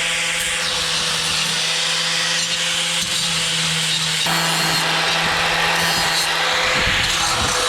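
Angle grinder with a flap disc running steadily against the edges of freshly cut metal pieces, grinding off the sharp edges left by the cutoff wheel.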